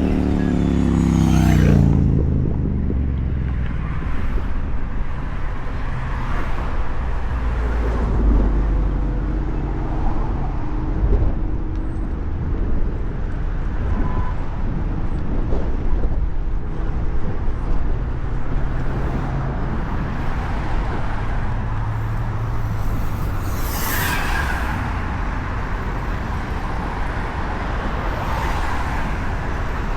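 City street traffic: vehicles running and passing, with a steady low rumble. One vehicle's engine drops in pitch as it goes by in the first two seconds, and a short hiss comes about 24 seconds in.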